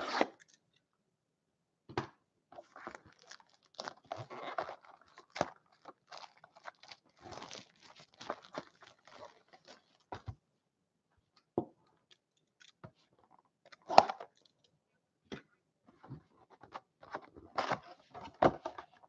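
Hands unwrapping and opening a 2018-19 Upper Deck Trilogy hockey card box: scattered crinkling and tearing of the plastic wrap and cardboard, with sharp clicks. One click about two-thirds of the way through is louder than the rest.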